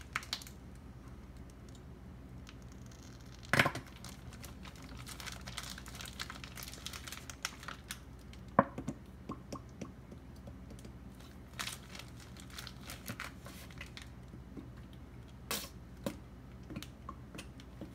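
Plastic Ziploc bag full of hair gel being squeezed and kneaded by hand, its corner cut off, crinkling with scattered small crackles. Four or so louder clicks stand out.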